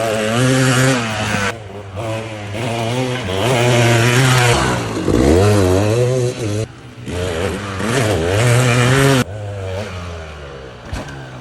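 200cc two-stroke dirt bike engine revving hard, its pitch climbing and falling again and again as the throttle is worked. The sound drops off briefly about a second and a half in and again near seven seconds, and runs quieter for the last couple of seconds.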